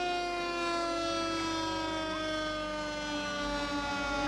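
Fire engine siren sounding one long tone that slowly winds down in pitch.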